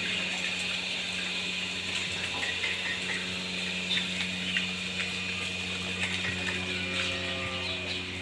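Steady machine hum with a hiss like running water, from dairy yard pump machinery, with a few light clicks from about halfway through.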